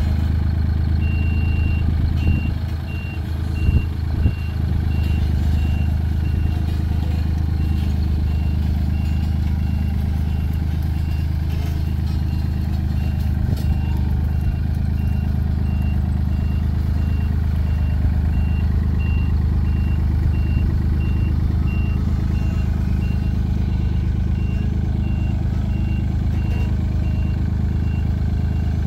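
Sakai TW504 tandem asphalt roller running with a steady low diesel drone while its travel alarm sounds a steady series of high beeps, starting about a second in. The engine note dips briefly around three seconds in, with two short knocks.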